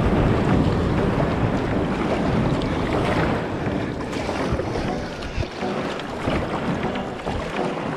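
Wind buffeting the microphone of a camera on a moving kayak, with water sloshing and splashing around the hull. The low wind rumble eases off about halfway through.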